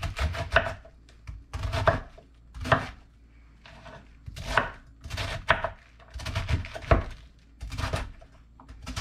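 Chef's knife slicing through a half head of green cabbage onto a wooden cutting board, in about ten separate cuts at roughly one a second.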